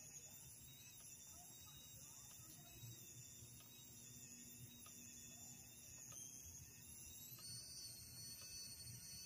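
Near silence: a faint low hum with thin, steady high-pitched whining tones above it, which step slightly higher near the end.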